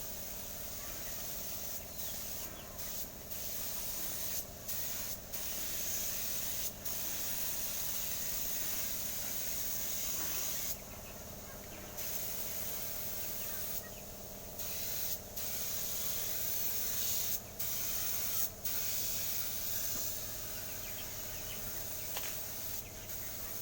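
Paint spraying: a steady hiss that stops and starts with many short breaks, one of about a second near the middle, over a faint steady hum.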